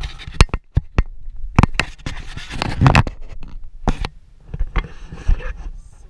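Camera handling noise: a string of irregular knocks and scraping rustles on the microphone as the handheld camera is moved and turned around, loudest a little before halfway.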